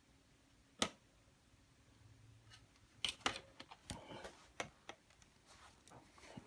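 Plastic vacuum-cleaner parts being handled: one sharp click, then a run of small clicks and knocks a couple of seconds later.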